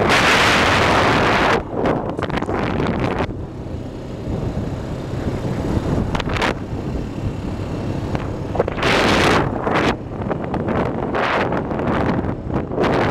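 ATV engine running as the quad rides along a dirt track, with wind buffeting the microphone in loud rushes during the first second and a half and again from about nine seconds in, easing off in between.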